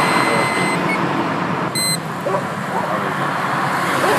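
Breath-alcohol tester's steady electronic tone, cutting off under a second in, followed by a single short beep about two seconds in. A steady hiss of road traffic runs underneath.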